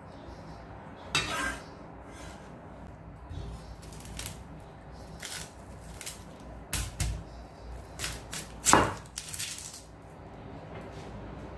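Steel cleaver on a wooden chopping board: scattered knocks and short scrapes as it gathers minced garlic and cuts through an onion, at an uneven pace rather than steady chopping. The loudest knock comes late on.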